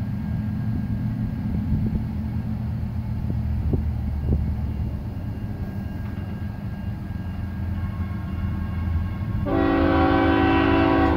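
Low, steady rumble of the approaching GE diesel locomotives. About nine and a half seconds in, the lead locomotive's horn sounds one loud, sustained blast, several notes at once.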